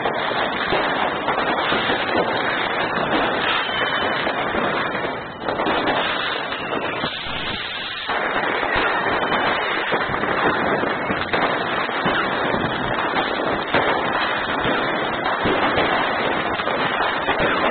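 Fireworks going off all around: a constant barrage of overlapping bangs and crackles with no pause, easing only briefly about five seconds in.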